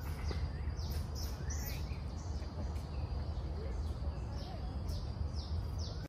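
Wild birds chirping, with many short high calls that fall in pitch, several a second. Under them runs a steady low rumble of wind on the microphone.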